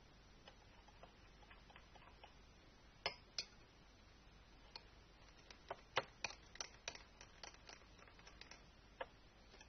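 Scattered small clicks and taps over a faint hiss: two sharp ones about three seconds in, then a quick irregular cluster in the middle and a single one near the end.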